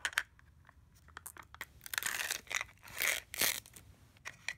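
Small toy packaging crinkling and tearing by hand in several short bursts as a Mini Brands miniature is unwrapped.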